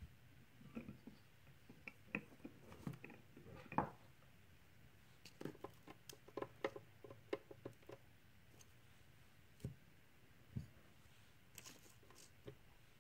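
Faint scattered clicks, taps and soft knocks of a cold process soap loaf being pushed along the marble base of a wire soap cutter and handled for cutting, with a quick run of ticks about halfway through.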